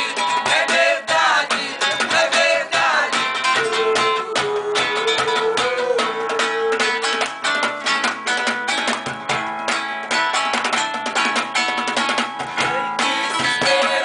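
Group of voices singing together to a strummed acoustic guitar, with one long held note about four seconds in.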